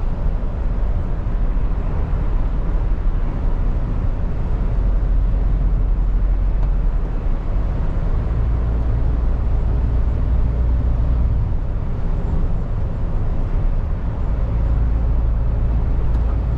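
Steady low drone heard inside the cab of a MAN TGX lorry at motorway speed: engine running under way, with road and tyre noise on a wet carriageway.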